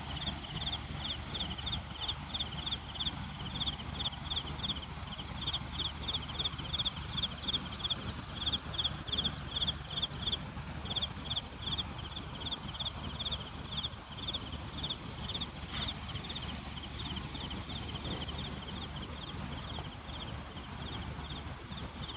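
Steady chirping: short, high chirps repeated about three times a second, broken by a brief pause near the middle. Fainter, higher falling calls join in over the second half, over a low steady rumble.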